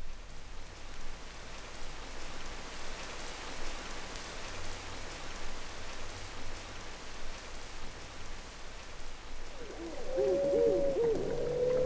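Atmospheric opening of a recorded instrumental track: a steady hiss of noise, joined about ten seconds in by a louder run of short arching hoot-like tones that rise and fall, over a held tone.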